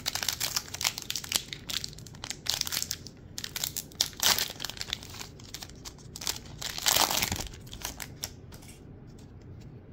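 Foil wrapper of a Panini Select football card pack being crinkled and torn open by hand, crackling in several louder bursts and dying down over the last second or so.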